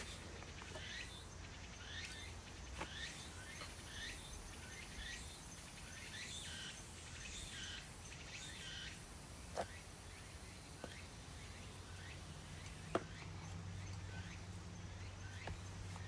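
Birds chirping in short, repeated downward-sliding calls, mostly in the first half, over a low steady hum. Two sharp knocks come in the second half, about three seconds apart.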